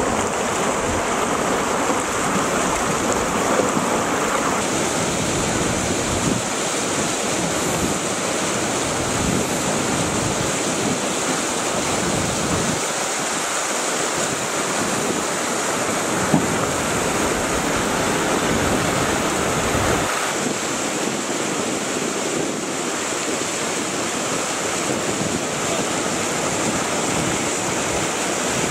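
Whitewater river rapid rushing loudly and steadily, an even roar of churning water. Its tone shifts a little about thirteen and twenty seconds in.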